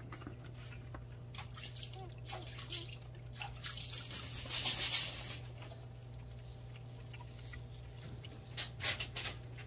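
Jindo mother dog eating from a bowl: wet lapping and chewing noises with scattered small clicks, loudest for about a second and a half around four seconds in.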